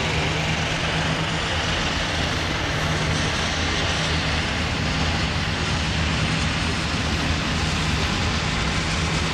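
Airbus A350-900's Rolls-Royce Trent XWB turbofans running at taxi idle as the airliner rolls past close by: a steady jet noise with a low hum underneath.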